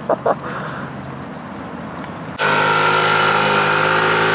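Yamaha NMAX scooter's single-cylinder engine idling steadily, cutting in abruptly about two and a half seconds in. Before that, a rapid series of short tones, about five a second, stops just after the start and is followed by a quieter stretch.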